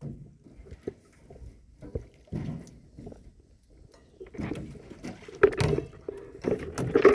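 Irregular knocks, bumps and shuffling of people climbing into and settling in a canoe. The knocks are sparse at first and grow busier and louder in the last couple of seconds.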